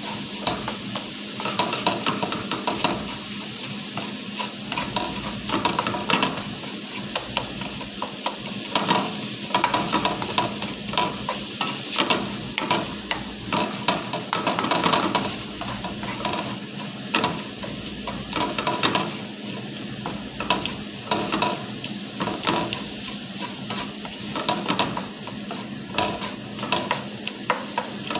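Minced chicken frying in a non-stick wok, sizzling steadily. Repeated irregular scrapes and taps of a spatula against the pan as the meat is stirred and broken up.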